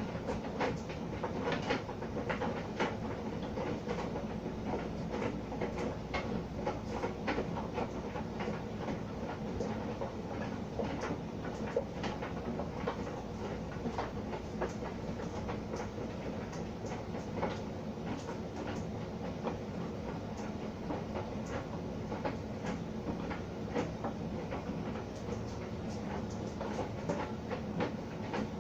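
Electrolux tumble dryer running on its cotton programme: a steady motor and drum hum with frequent irregular clicks and taps as the laundry tumbles in the drum.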